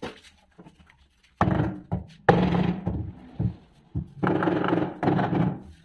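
A hand tool scraping against the concrete countertop at the edge of a stainless steel sink, in three or four strokes about a second long each, with short pauses between.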